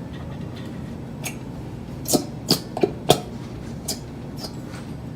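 A plastic bottle of Elmer's glue squeezed nearly empty, giving a handful of short sputtering pops, most of them bunched together about two to three seconds in.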